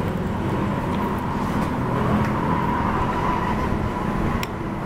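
Steady road traffic noise from a busy highway, with vehicle engines running. A single sharp click comes near the end.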